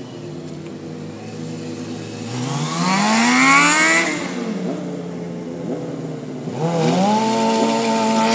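Sport-bike inline-four engine idling, then revving up in a rising climb about two seconds in and dropping back near four seconds. About seven seconds in it revs up again and is held at high revs as the rear tyre spins in a smoking burnout.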